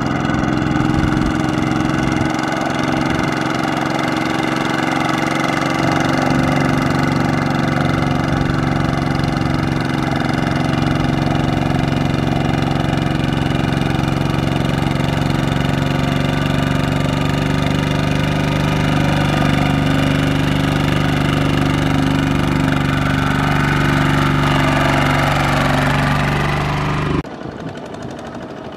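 Two-wheel walking tractor's single-cylinder diesel engine running steadily with an even chugging tone as it pulls a loaded trailer through mud. Near the end the sound cuts off abruptly to a quieter engine sound.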